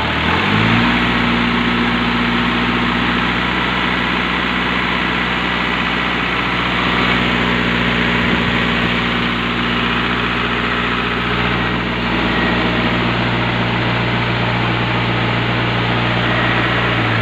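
Diesel engine speeding up from a low idle about half a second in, then running at a steady higher speed.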